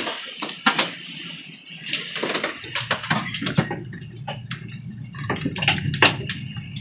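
Hail and heavy rain hitting an RV's roof and windows: a steady rush of rain with sharp, irregular hailstone hits, a few a second.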